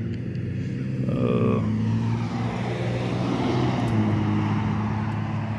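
A motor vehicle's steady low engine hum, with a rushing noise that swells through the middle and then fades.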